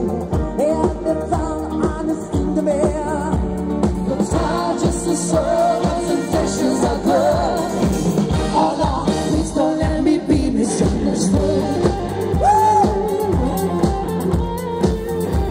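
Live band playing pop music: singing with vibrato over electric guitars, keyboard and a drum kit keeping a steady beat.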